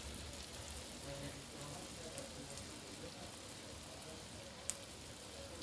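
Urad dal vadas deep-frying in hot oil in a kadhai: a steady sizzle with fine crackles. A single sharp click sounds near the end.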